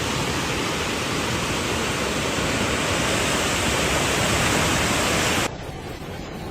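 Loud, steady rushing of water, a dense hiss spread across all pitches. About five and a half seconds in it cuts abruptly to a quieter, thinner water sound.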